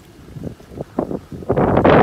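Wind buffeting the microphone in uneven low rumbles, building into a loud gust about a second and a half in.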